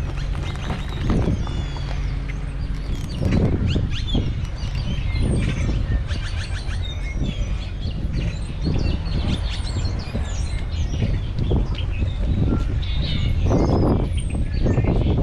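Birds chirping and calling again and again, over a steady low rumble.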